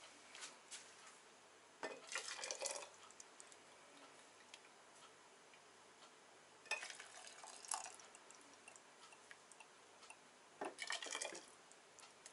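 Hot tomato marinade ladled from a steel pot into glass jars: a few short bursts of pouring and splashing with the ladle knocking against the pot, about every four seconds.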